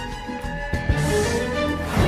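Dramatic soundtrack music: held tones over a low, pulsing bass, with a rising swell building toward the end.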